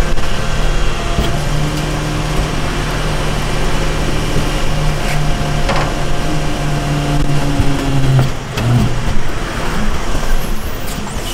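Garbage packer truck running with its engine held at speed while the rear control levers work the hydraulic loading and compacting mechanism. The sound is a steady hum that shifts in pitch about eight seconds in, with a few light knocks.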